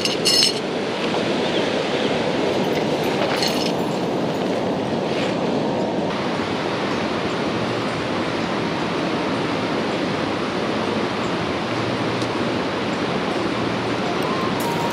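Fast river rapids rushing steadily. A bundle of metal tent stakes clinks briefly right at the start.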